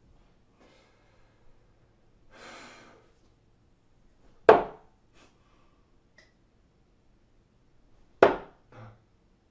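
Two darts striking a Winmau Blade 5 bristle dartboard: a sharp thud about four and a half seconds in and another about eight seconds in, the second followed by a softer knock. A brief hiss comes a couple of seconds in.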